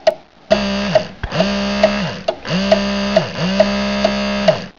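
Clock ticking about twice a second, with a loud buzzy synthesized tone over it in four long pulses, each dropping in pitch as it stops: a time-passing sound effect.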